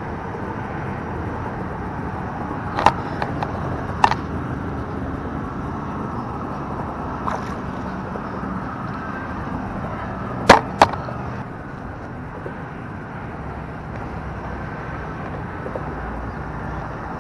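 Steady hum of distant freeway traffic, broken by a few short sharp sounds: one about three seconds in, another about four seconds in, and a close pair about ten and a half seconds in.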